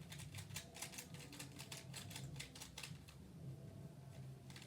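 Faint plastic clicking of a Rubik's cube being handled and turned: a quick run of clicks in the first second and a half, then scattered clicks.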